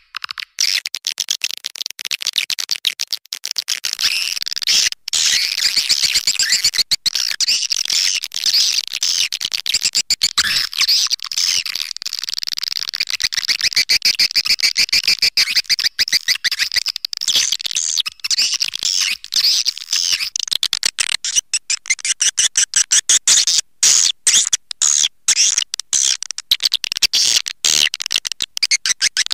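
Edible-nest swiftlet calling sound, a 'panggil' lure recording of the kind played to draw swiftlets into a swiftlet house: a dense, rapid, high-pitched chattering twitter that runs on without a break.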